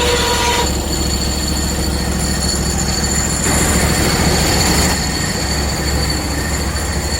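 Hudson portable band sawmill running: a steady engine hum under a high, steady whine from the band blade. A louder hiss rises for about a second and a half around the middle.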